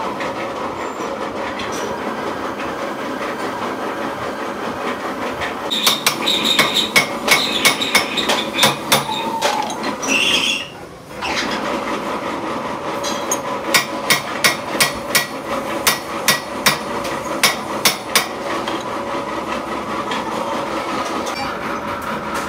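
Steady machine hum with a run of sharp metal-on-metal knocks, several a second, from about six seconds in until near eighteen seconds, with a brief break near the middle, as a threaded gland is worked onto a hydraulic cylinder.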